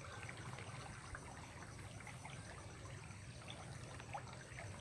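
Faint trickle of flowing water with a steady low hum underneath and a few small ticks.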